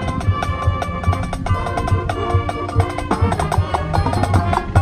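High school marching band playing: winds and brass holding chords over a steady beat of low drums, with sharp clicking percussion on top.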